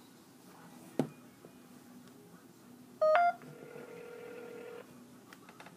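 Mobile phone placing an outgoing call: a sharp tap about a second in, a quick rising run of electronic beeps about three seconds in, then a steady ringing tone for about a second and a half.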